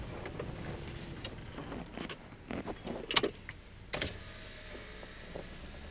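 Car engine and road noise heard from inside the cabin while driving, a steady low rumble with a few sharp clicks, the loudest about three seconds in.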